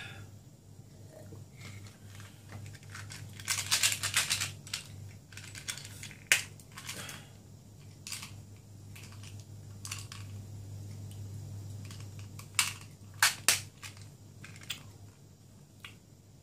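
Small objects handled on a tabletop: a rustle of plastic a few seconds in, then scattered sharp knocks and clicks as a small glass cup is set down and picked up, over a steady low hum.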